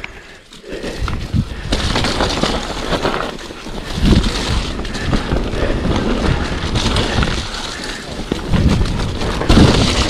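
Mountain bike riding fast down a dirt trail: tyres rolling over rough ground and the bike knocking and rattling over bumps, with wind on the microphone. It gets louder after the first second or so.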